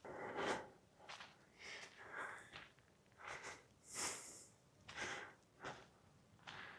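A person's faint, audible breathing while walking: a series of short noisy breaths, roughly one every half second to a second.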